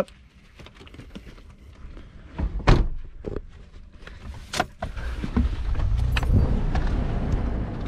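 Sounds of getting into an SUV: scattered clicks and knocks, with a sharp door-like thump a little under three seconds in and another near the middle. A steady low rumble then runs from about five seconds on.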